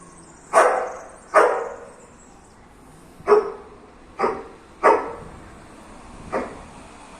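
Husky barking six short, sharp barks at uneven intervals, the last one softer: play barking at a cat.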